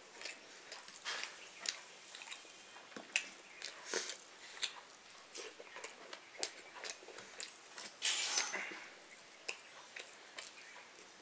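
A person chewing and eating, with irregular wet mouth smacks and clicks.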